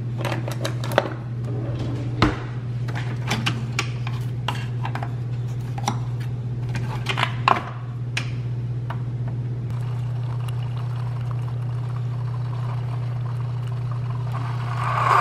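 Clicks and clatter of plastic K-cup pods being picked from a drawer and of the Keurig single-serve brewer's lid and buttons being worked, then the brewer running and coffee streaming into a ceramic mug. A steady low hum runs underneath, and the sound grows louder just at the end.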